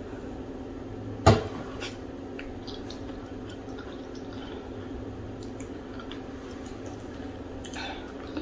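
Wet, squishy mouth sounds of eating pounded yam with okra soup by hand: sticky lip smacks and clicks, the sharpest about a second in, over a steady low hum.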